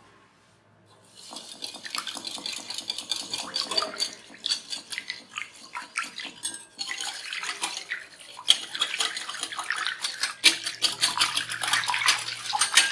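Metal wire whisk beating egg, sugar and water in a glass bowl: fast clicking and scraping of the wires against the glass with the liquid sloshing, starting about a second in, with a short pause a little past halfway.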